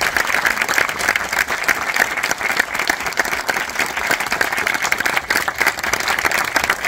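Cinema audience applauding: a steady, dense patter of many hands clapping, with some hands clapping close by.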